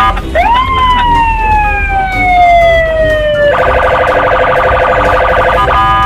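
Police patrol car siren: one long wail that sweeps up quickly and then slides slowly down, then, about three and a half seconds in, switches to a rapid pulsing warble, over a low rumble.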